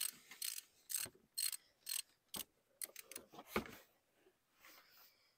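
Ratchet wrench with a 12 mm socket clicking as it loosens the oil filter cover bolt on a Honda Rincon 680 ATV engine. There are sharp clicks about twice a second at first, then a few more at uneven spacing.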